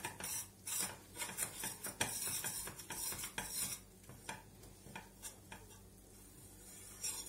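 Metal spoon scraping and clinking against a small stainless steel saucepan, stirring flour as it toasts in olive oil. The strokes come thick and fast at first and thin out after about four seconds.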